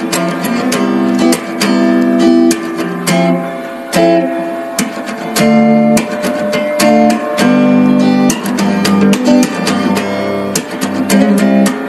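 Background music led by guitar, strummed and plucked chords in a steady rhythm.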